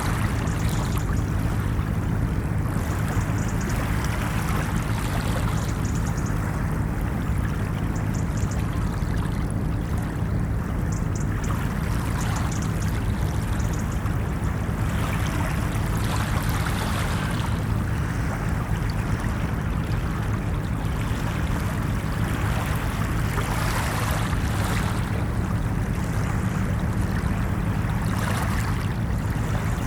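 Ocean surf washing continuously onto a shore, with waves swelling and receding every few seconds over a steady low rumble.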